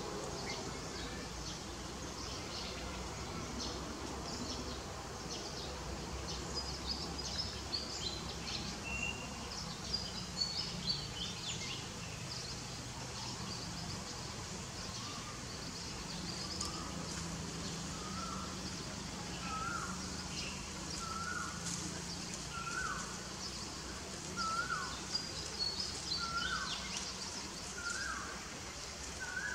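Outdoor ambience with birds calling: scattered short high chirps, then from about halfway a short hooked call repeated steadily, roughly once every second and a bit.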